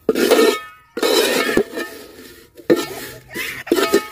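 Metal spoon scraping and stirring a thick chilli-powder masala in a metal pot, in about four separate strokes with a slight metallic ring. The spices are being fried in oil until the chilli powder is cooked through.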